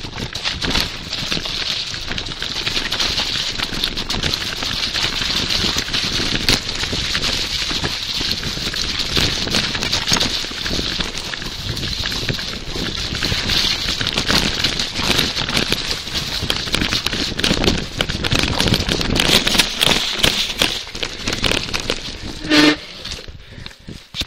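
A bicycle riding over a rough, muddy dirt trail, picked up by a handlebar-mounted phone: a steady rattling hiss of tyres on dirt and a shaking bike, full of small knocks. Near the end there is a brief squeak, and the noise drops off as the ride eases.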